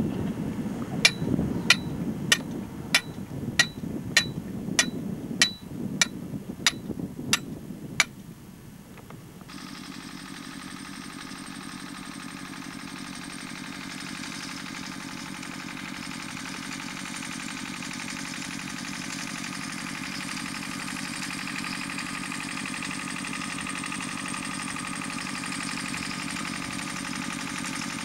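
A run of evenly spaced metallic clinks, about two a second for some eight seconds, each with a short ring, over wind on the microphone. After that a steady hiss with a faint hum.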